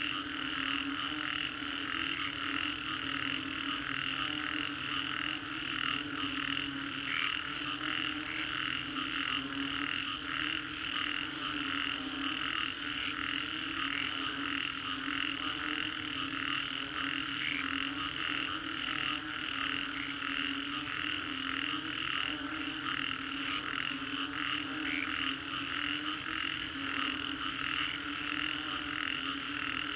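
A dense chorus of many frogs calling at once after a storm: a low, steady croaking layer under a higher layer of fast, overlapping pulsed calls.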